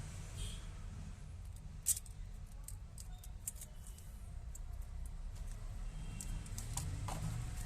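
Scattered small, sharp clicks and taps from handling and tools during a mobile phone repair, with one louder click about two seconds in, over a low steady hum.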